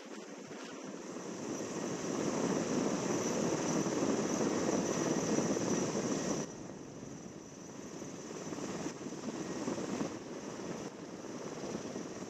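Erickson S-64 Aircrane heavy-lift helicopter's rotors and twin turbine engines running steadily. The sound grows louder over the first two seconds and drops suddenly about six seconds in.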